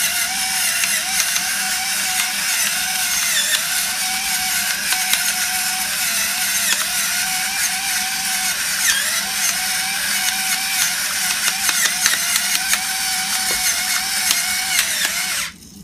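Electric pepper grinder running steadily, a wavering motor whine over the grinding of peppercorns. It cuts off suddenly near the end.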